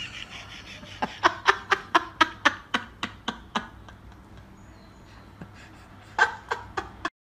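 A person laughing under their breath: a run of about a dozen short chuckles that slow as they go, then two more near the end.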